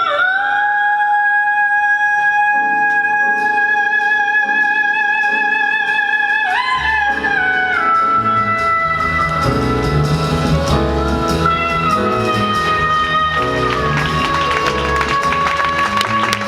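Live music led by a wind instrument holding long notes with a slight vibrato and moving to a new pitch a few times. Low accompaniment comes in about seven seconds in, and busy percussion builds near the end.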